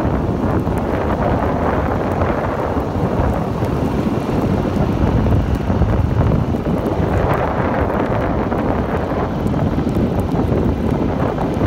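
Wind buffeting the microphone: a loud, steady rumbling noise that rises and falls a little.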